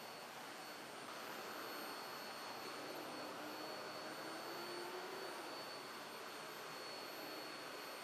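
Vacuum cleaner running steadily, a smooth rushing with a thin high-pitched whine.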